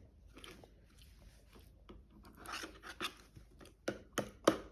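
Cutlery scraping and rubbing against a plate while pancake is cut or scooped, then several sharp taps and clicks near the end.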